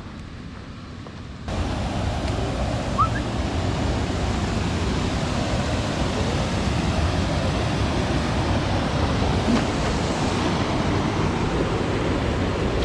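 Steady rushing of flowing river water, starting abruptly about a second and a half in and then holding even.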